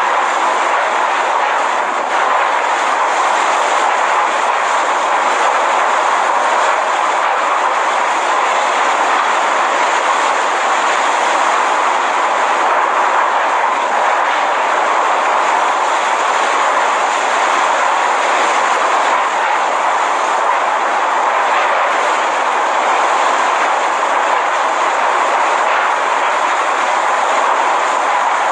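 Hurricane-force wind blowing hard and without let-up, a loud, dense, even rush of noise with no gusts or breaks.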